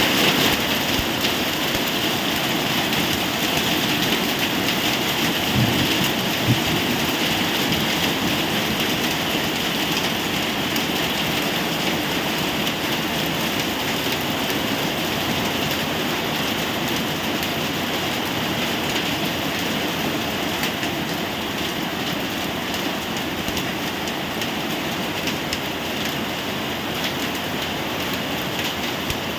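Rain falling steadily, a dense even hiss, with a couple of brief low knocks about six seconds in.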